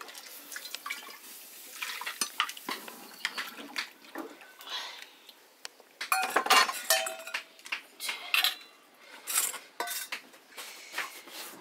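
Metal pots, bowls and utensils clinking and clattering in a series of sharp knocks, busiest past the middle. Near the start, water is poured into the metal plate lid on top of the cooking pot.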